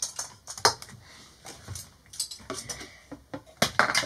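Hard plastic pieces of a toy solar system model clicking and clattering as they are handled and fitted together, with a quicker run of clicks near the end.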